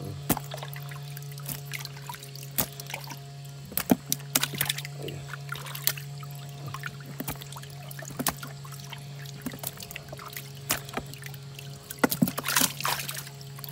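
Live fish flapping and splashing in shallow water in the bottom of a boat as they are grabbed by hand, with repeated sharp slaps and splashes, the busiest near the end. A steady low hum runs underneath.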